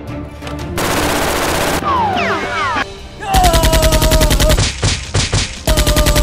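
Rapid-fire automatic gunfire sound effect in two bursts, a long one and a short one near the end, over background music.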